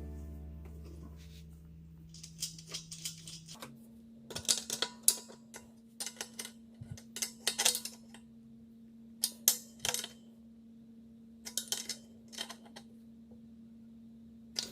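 Small metal tools and fittings clinking and clicking in short clusters of light taps while a coupling is fitted to the compressor's copper tubing.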